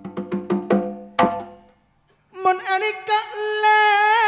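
Gamelan: a quick run of ringing struck notes that ends on a louder stroke. After a short pause a singer starts one long held note with small wavers.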